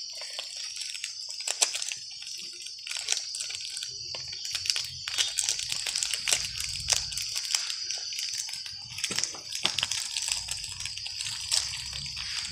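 Plastic snack-cake wrappers crinkling and crackling in irregular bursts as monkeys grip and bite at them, failing to tear them open. A steady high-pitched whine runs underneath throughout.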